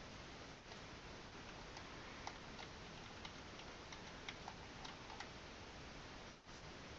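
A scattering of light clicks, about a dozen within a few seconds, over a steady faint hiss.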